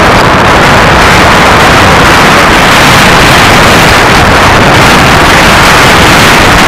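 Wind rushing over the microphone while moving along a rough forest track: a loud, steady rushing noise with a low rumble underneath.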